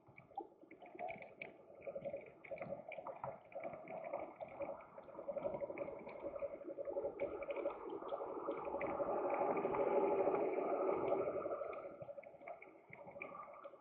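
Muffled city street traffic picked up through a dashcam's microphone, over a steady hum, swelling as vehicles pass through the intersection around the middle.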